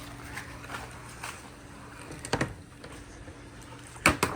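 Marbles on a handmade wooden marble run, mostly quiet with a faint steady hum, then a few sharp clacks near the end.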